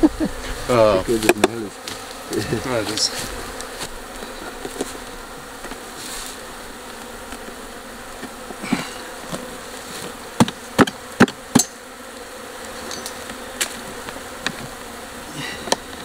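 Steady buzzing of an open African honeybee colony, with a quick run of four sharp knocks about ten seconds in as a nail fixing the hive box to its floor is worked out.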